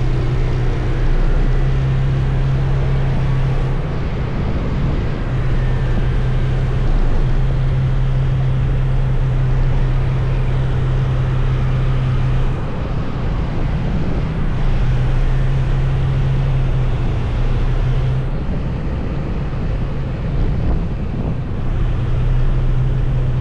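A vehicle engine running, with a steady hum that breaks off a few times, and wind noise on the microphone.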